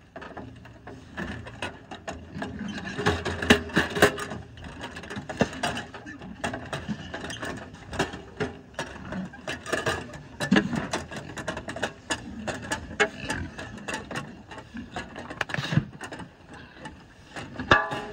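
Aluminium grain scoop scraping and digging into pig feed in a steel tractor loader bucket, with grain rattling and pouring off the shovel. The scrapes and clicks come in an irregular run, a few stronger strokes standing out.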